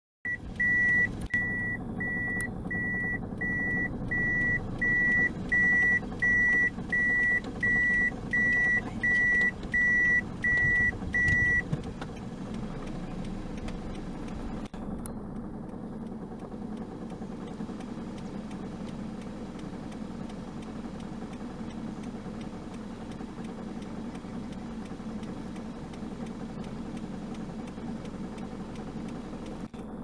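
Vehicle engine idling steadily, with a high electronic warning beep repeating a little more than once a second for the first eleven seconds or so, then stopping.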